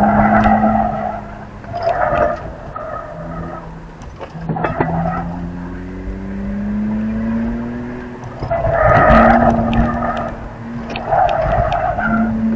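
BMW E46 325xi Touring's 2.5-litre inline-six engine accelerating, its pitch climbing steadily through the middle. Tyres squeal in about five short bursts as the car corners at the limit. Heard from inside the cabin.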